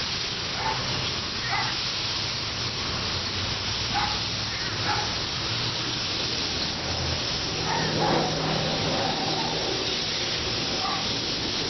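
Steady hiss of water spraying from a hose, as when rinsing a heat pump's condenser coil.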